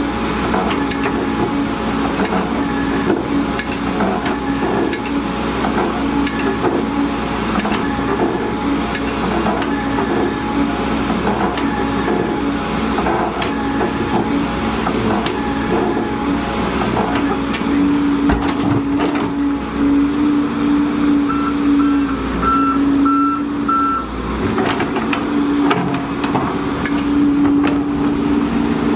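Volvo EC210D excavator's diesel engine running steadily under work, with a warning alarm beeping every second or two through the first half and a quicker run of beeps at a different pitch about three-quarters of the way in.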